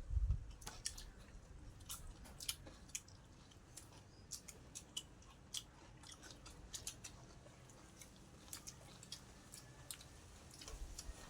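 Quiet close-up eating: a person chewing food, with sharp wet mouth clicks and smacks scattered irregularly throughout.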